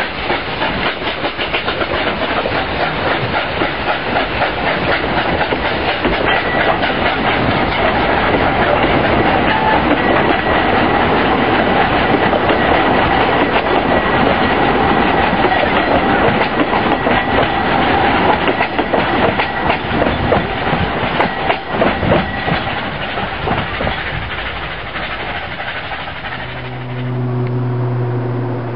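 Narrow-gauge railway carriages rolling past close by, their wheels clattering over the rail joints, with a thin steady squeal through the middle. Near the end the clatter stops abruptly and a steady low hum takes over.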